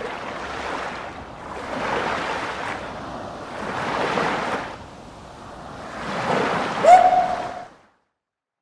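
Ocean waves washing in slow swells, surging about three times. Near the end comes a short tone that slides up and holds for about half a second, and then the sound fades out.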